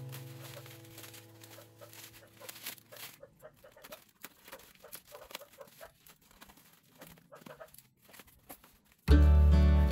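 Faint, irregular crinkling and crackling of bubble wrap and cardboard as a wrapped box is pulled open. Background guitar music fades out at the start and comes back in loudly near the end.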